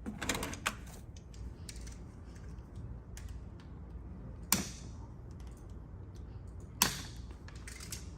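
Scattered clicks and light knocks of shower commode chair parts being handled and fitted during assembly, with sharper knocks about four and a half and seven seconds in.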